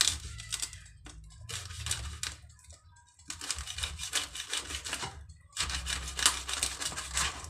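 Knife cutting through the crisp roasted skin of a pork head, a dense crackling in four bouts with short pauses, the last two the longest.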